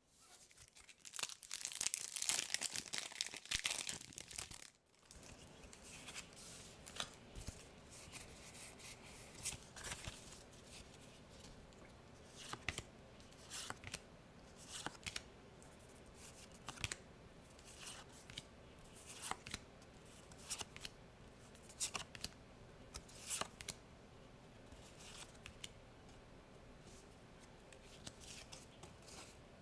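A foil trading-card booster pack torn open for about four seconds, then the cards slid and flicked through one at a time, a crisp card snap every second or so.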